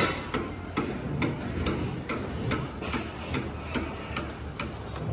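Footsteps of a person walking at a steady pace, a little over two steps a second.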